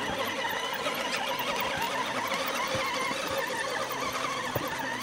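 Electric motor and drivetrain of a scale RC crawler truck whining as it climbs a steep slope, the pitch wavering with the throttle, with a few faint clicks of tyres on loose rock.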